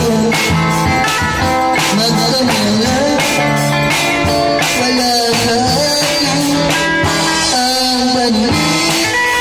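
Drum kit played live by a child drummer over amplified music from a portable speaker: a rock-blues song with guitar and a man singing into a microphone, the drums keeping a steady beat.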